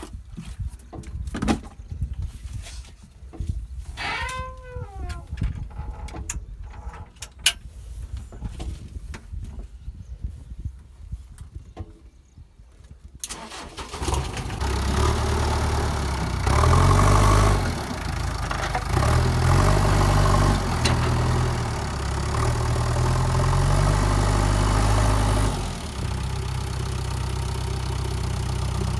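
A JCB 3DX backhoe loader's diesel engine starts about halfway through, revs up and down several times, then settles to a steady idle near the end. Before it starts there are only scattered light knocks and a brief wavering call.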